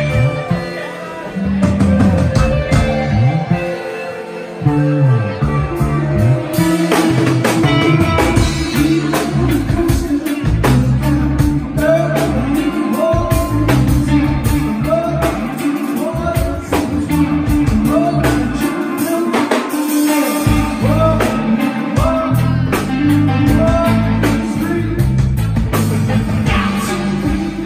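Live rock band playing: electric guitars, bass and drum kit, with a singer's voice over the band.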